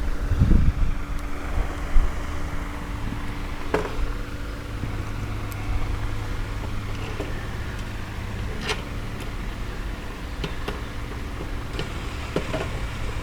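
A steady low mechanical hum, like a vehicle engine running, with a few sharp knocks and clicks of wooden coop panels being handled and fitted together.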